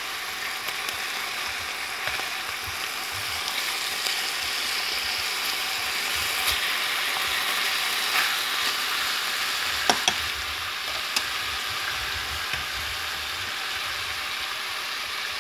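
Lean pork pieces sizzling in hot oil in a nonstick frying pan, a steady frying hiss as the meat sears. A few light clicks come from the wooden chopsticks knocking the pan as the pieces are moved, the sharpest about ten seconds in.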